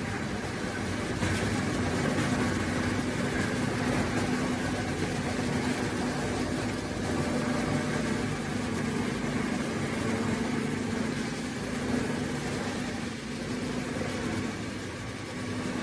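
Automatic tire block cutting machine running: a steady mechanical drone with a constant low tone, with no distinct strokes standing out.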